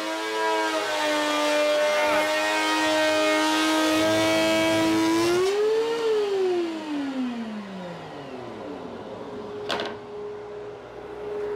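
DeWalt DW735 thickness planer running with its impeller fitted, a steady high-pitched whine. About six seconds in it is switched off, and its pitch slides down as the motor and cutterhead coast to a stop. Near the end comes a single sharp knock as a board is set down on the planer.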